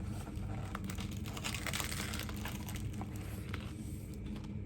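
Crinkling of a banh mi's paper wrapper and chewing as the sandwich is eaten, irregular and crackly over a low steady hum.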